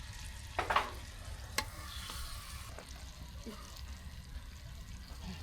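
Red snapper frying in butter and oil in a pot, a steady sizzle, with a couple of short knocks, the loudest about a second in.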